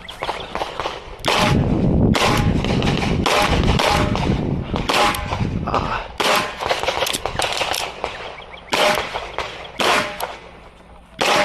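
CZ Shadow 2 pistol fired in a fast string of shots, many in quick pairs with short pauses between groups, as a competitor shoots a timed stage.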